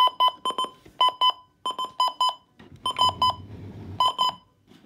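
Alarm clock beeping from Midland WR120 and WR400 weather radios going off together: quick clusters of short, high electronic beeps repeating over and over. About three seconds in there is a brief low rustle of handling.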